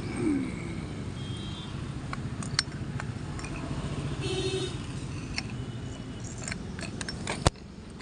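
Scattered metal clicks and knocks from a Suzuki Swift ignition lock and steering-lock housing being handled, the sharpest one near the end. A steady low hum of road traffic runs underneath.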